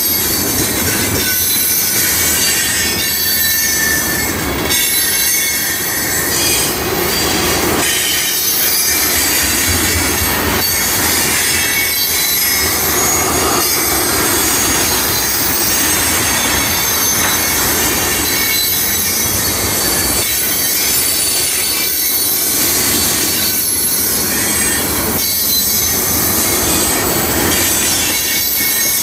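Loaded railroad tank cars of a long freight train rolling past close by: steel wheels squeal against the rail on the curve over a steady rumble, with a regular clack as each truck passes, about every one and a half to two seconds.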